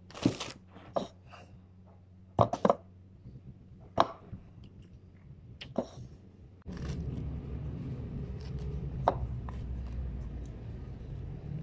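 Crinkling of a plastic bread bag, then a string of sharp knocks and clinks as a ceramic mug with a spoon in it and other breakfast things are handled and set down on a wooden table. A little over halfway in, a steady low rumble starts suddenly and runs on under the handling sounds.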